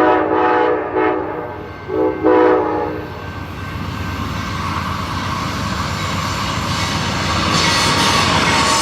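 Amtrak GE P42 locomotive horn sounding a chord in four blasts, long, long, short, long, the grade-crossing signal, over the first three seconds. The passing train's rumble and wheel clatter then build steadily and grow louder toward the end.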